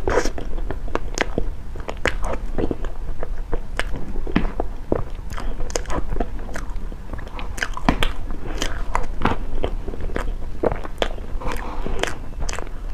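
Close-up eating sounds of taro-paste lava cake being bitten and chewed, with many short mouth clicks in quick succession.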